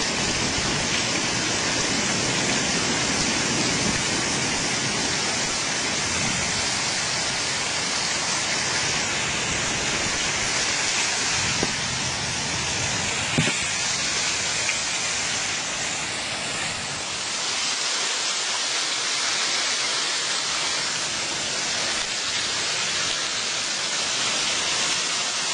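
Steady rain from a thunderstorm, an even hiss, with a few brief taps around the middle.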